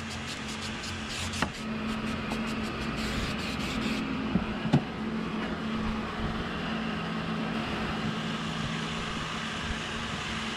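Electric heat gun running steadily, its fan blowing hot air to warm the seat vinyl so it can be stretched, with two short taps about one and a half and nearly five seconds in.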